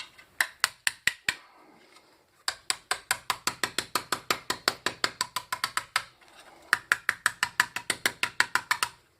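Hammer tapping quickly and lightly on a hollow sterling silver handle, about six strikes a second in two long runs after a few opening taps, shattering the resin fill inside without flattening the silver.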